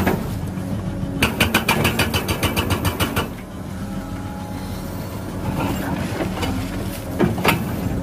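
Caterpillar crawler excavator fitted with a hydraulic breaker hammering rock. A rapid run of blows, several a second, starts about a second in and lasts about two seconds over the steady running of the diesel engine. Then the engine runs on, with a couple of single knocks near the end.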